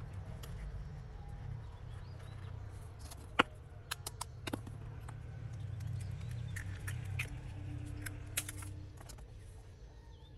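Hands working potting soil in a plastic flower pot and pressing a small melon into it: a scratchy rustling of soil with a few sharp clicks and knocks, the loudest about three and a half seconds in, over a low steady rumble.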